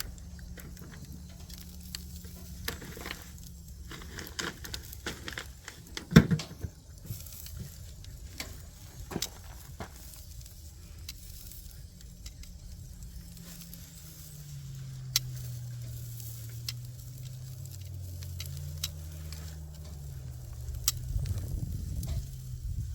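Hot dogs sizzling on a grate over glowing campfire coals, with scattered crackles and pops from the embers and one louder knock about six seconds in. A low steady hum runs underneath and shifts in pitch partway through.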